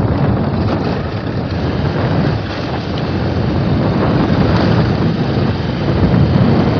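Wind rushing over the microphone of a moving Bajaj Pulsar 220F motorcycle, with its single-cylinder engine running underneath as the bike rides along.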